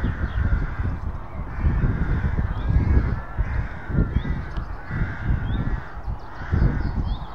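Harsh cawing bird calls repeating about every second and a half, over a steady low rumble of road traffic.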